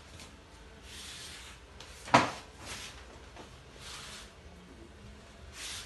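A single sharp knock about two seconds in, amid faint rustling from handling things on a kitchen counter.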